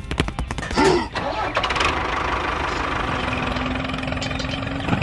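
A small engine starts with a quick run of clicks and then runs steadily, with a short voice sound near one second in.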